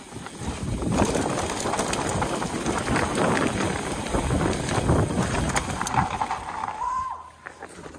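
Mountain bike ridden fast down a rough dirt trail: wind rushing over the camera microphone, with the tyres and the bike's frame and chain rattling in many clicks and knocks. The noise drops about seven seconds in, with a short squeal.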